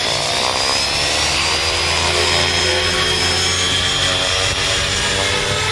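Radio-controlled model helicopter running: a steady low rotor beat under a thin high motor whine that rises slowly in pitch as the rotor spins up and the helicopter lifts off into a hover.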